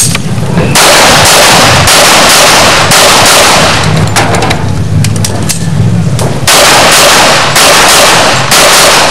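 A course of fire from a handgun: rapid shots in quick strings, loud enough to distort the recording, with a brief lull in the middle before another string.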